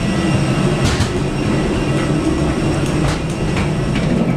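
Steady low rumble inside an Airbus A320-232 cabin while taxiing after landing, with a few sharp clicks and knocks.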